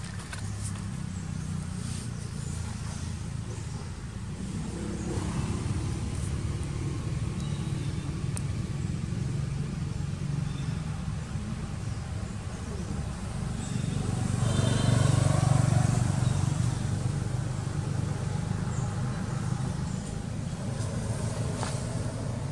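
Motor vehicle engine running steadily as a low hum, growing louder about two-thirds of the way through and then easing off, as if a vehicle passes close by.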